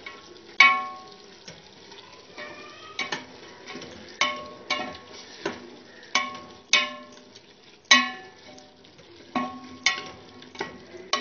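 A spoon stirring minced meat and spices in a pressure cooker pot, knocking against the pot's metal side with a dozen or so ringing clangs at irregular intervals.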